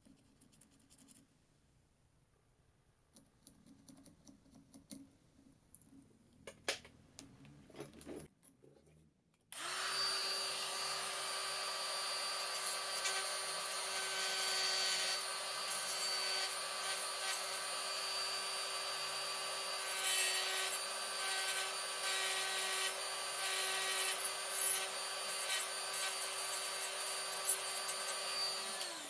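Faint scraping and light taps, then about a third of the way in a small electric power tool starts and runs at one steady pitch with a high whine for about twenty seconds, a grinding rasp coming and going as it cuts into the workpiece, before it stops just before the end.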